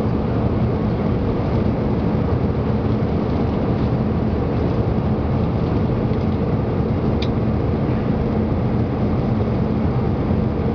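Steady cabin noise of an Airbus A320-200 in cruise, seated by the wing: engine drone and airflow rushing past the fuselage, with a low hum running through it.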